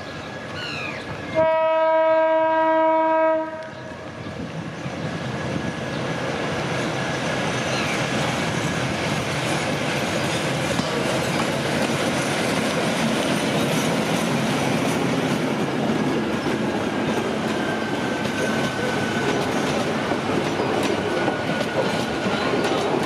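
Class DD900 diesel locomotive sounds one long horn blast, about two seconds, a second and a half in. Then the train's engine and wheels grow louder as it approaches, and the locomotive and its coaches roll past on the rails.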